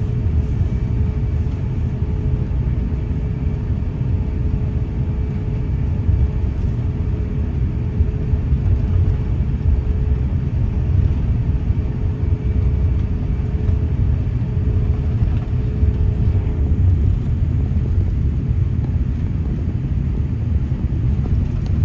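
Steady low rumble in the cabin of a Japan Airlines Airbus A350-900 on the ground before takeoff, from the airliner taxiing with its engines at idle, with a faint steady hum above it.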